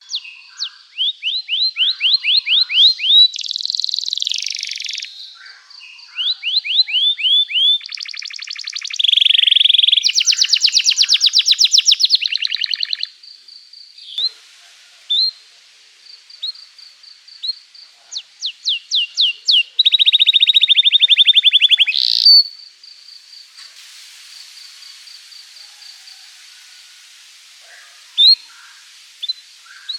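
Domestic canary singing a long, lively song: runs of sharp downward-sweeping chirps, several a second, alternating with fast buzzing trills. The song drops to a softer run of rapid notes for a few seconds near the end.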